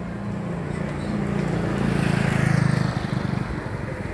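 A motor vehicle's engine running as it passes along the road, growing louder to a peak about two and a half seconds in and then fading, over the hiss of tyres on the road.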